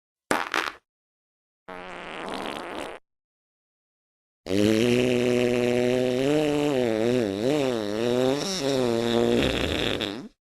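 Three fart sound effects, one after another. The first is short, the second is noisier and lasts about a second and a half, and the third is a long, pitched fart of about six seconds whose tone wavers up and down in its second half.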